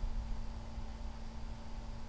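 Quiet steady background: a low rumble with a steady electrical hum and faint hiss, and no distinct event.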